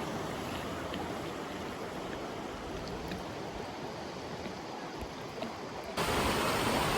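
River water rushing, a steady noise that suddenly becomes louder near the end.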